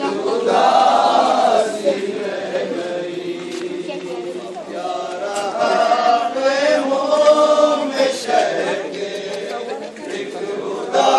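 A crowd of men chanting together in unison, voices drawn out in long held notes: a mourning chant of a Muharram procession.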